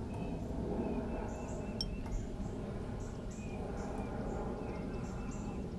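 Outdoor background noise: a steady low rumble with scattered short, high chirps and one brief whistle-like sweep about two seconds in.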